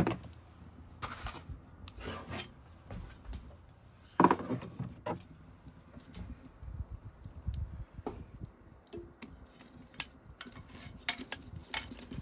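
Small objects being handled: scattered clinks, clicks and knocks, like cups and utensils, with two louder rustling knocks, one at the start and one about four seconds in.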